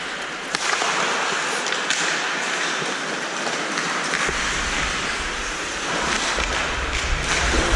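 Ice hockey skate blades scraping and carving across the rink ice, with a few sharp clicks of sticks and puck. A low wind rumble on the helmet-mounted camera comes in about four seconds in and grows louder near the end.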